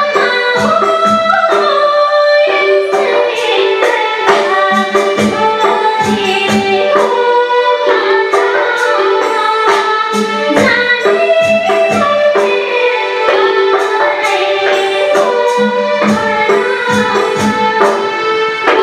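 A woman singing a Nepali song over instrumental accompaniment, with held drone notes and a regular percussion beat.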